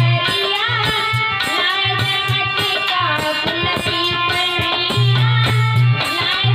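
Bhajan music: a plucked string melody over a steady low drum beat.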